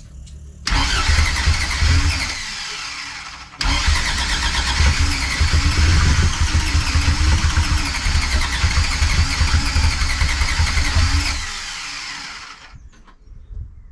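Freshly built classic Mini 1330 cc A-series engine being cranked on its starter during its first start attempts: a short crank about a second in, then a longer crank of about eight seconds that tails off near the end.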